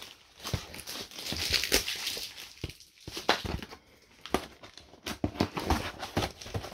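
Cardboard mailing box being handled and opened: irregular rustling, crinkling and scraping of card, with its tear strip being pulled near the end.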